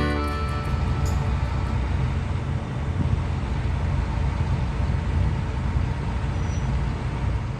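Steady low rumble of a large harvest vehicle's diesel engine running.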